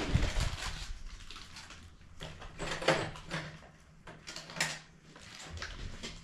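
Rummaging through a case of bolts and small hardware looking for one that fits: irregular clicks, clinks and rattles of small metal parts, loudest at the start and again around three seconds in.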